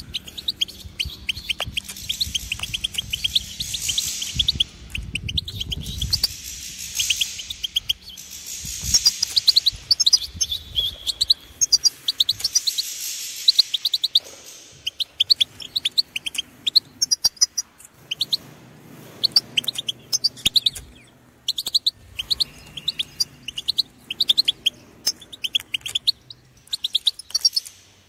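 European goldfinch singing: long runs of rapid, twittering notes, broken by short pauses.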